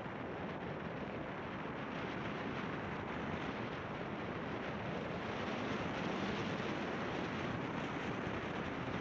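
Steady rushing of wind buffeting the microphone, mixed with the hiss of a board gliding over snow-covered lake ice.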